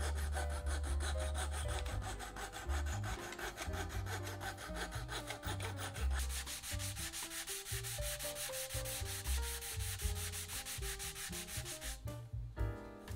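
Japanese double-sided flush-cut saw trimming wooden miter keys flush with a walnut box side, in rapid short strokes at about five a second that stop about twelve seconds in. Background music plays underneath.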